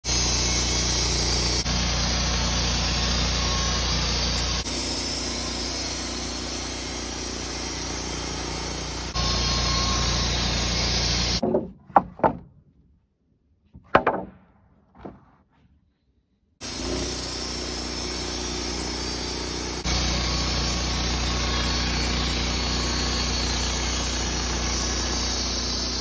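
Wood-Mizer LT15 portable band sawmill running, its blade cutting through Douglas fir: a loud, steady mechanical noise in several abrupt stretches. About twelve seconds in, it drops out for about five seconds, leaving near silence broken by a few sharp knocks, and then the mill noise comes back.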